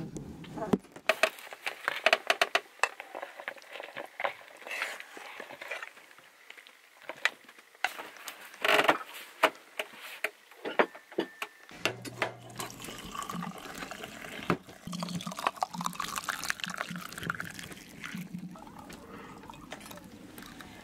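Crockery and cutlery clinking and knocking as plates are handled and set down. In the second half, tea is poured from a metal kettle through a small strainer into a cup.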